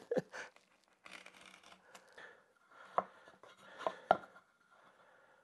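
Utility knife cutting through a thin adhesive foam sheet with faint scratchy strokes, then three sharp knocks, about three and four seconds in, as the knife and the wooden push block are set down on the workbench.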